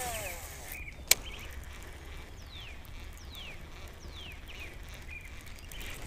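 Casting and retrieving with a baitcasting rod and reel: a sharp click about a second in, then quiet reeling. Through the middle a bird gives three short falling whistles, a little under a second apart.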